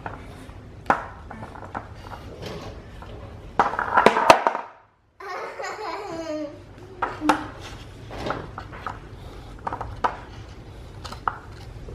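A bulldog puppy mouthing and nudging a skateboard on a brick hearth: scattered knocks, clicks and scrapes of the board and its wheels, busiest about four seconds in. The sound drops out for a moment just before five seconds.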